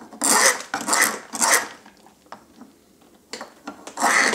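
Jeweller's hand file drawn over the metal of a ring blank, shaping the ends before soldering: three quick strokes, a pause, then two more near the end.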